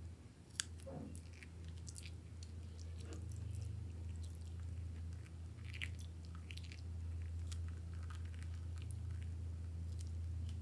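Scissors snip the tip of a plastic piping bag about half a second in, then the bag crinkles and squelches as thick clear liquid is squeezed out of it onto soft clay, with many small scattered crackles, over a steady low hum.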